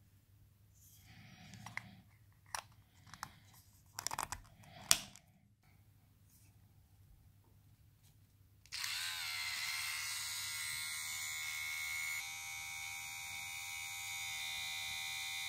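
Plastic clicks and handling of a Silvercrest nose and ear hair trimmer's battery cap being twisted back on. A little past halfway, the trimmer is switched on and its small electric motor and spinning cutter buzz steadily, the tone shifting slightly about three seconds later.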